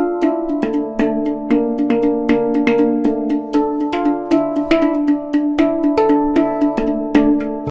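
Instrumental background music: a pitched tune with evenly paced notes, about three or four a second, that cuts off abruptly at the end.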